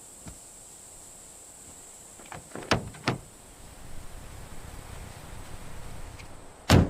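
A few sharp clicks or knocks over a faint background hiss: a small cluster about two and a half to three seconds in, and a louder single one near the end.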